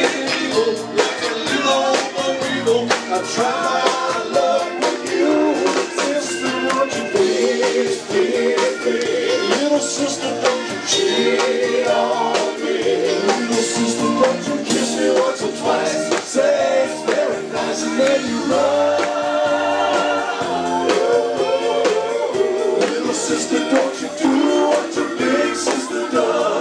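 Live rock band playing with electric bass, electric guitars and a drum kit keeping a steady beat, a man singing lead over it.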